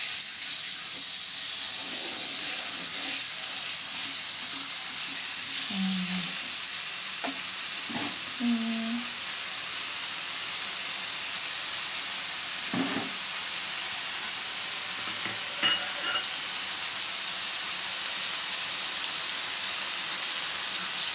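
Ground spice paste sizzling steadily in hot oil in a wok while being stirred with a metal spatula, with a few short scrapes of the spatula against the pan.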